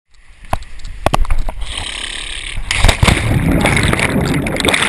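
Action camera's own microphone in its housing: a few knocks from handling, then loud rushing and splashing water from about two and a half seconds in as the camera goes into the pool.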